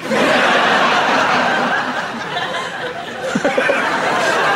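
Studio audience laughing, breaking out suddenly and holding strong throughout, with a slight dip midway.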